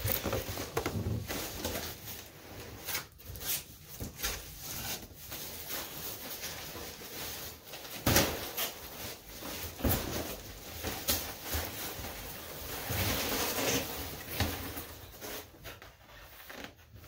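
Cardboard shipping box and its contents being dumped out and handled: rustling of cardboard and packing material with scattered knocks and thumps, the sharpest about eight seconds in.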